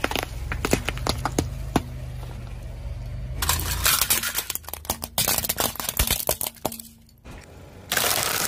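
A car tyre slowly rolling over objects on asphalt and crushing them in turn: watermelons, plastic toy gumball machines and a tray of eggs. Sharp cracks, snaps and clinks run over a low rumble. The sound changes abruptly about three and a half seconds in to dense crackling and clinking, then again near the end to a dense crunching hiss.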